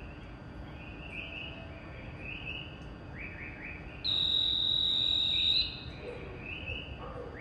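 Repeated bird-like chirps in quick groups of three or four. About four seconds in, a loud, steady, high-pitched beep cuts in and holds for about a second and a half.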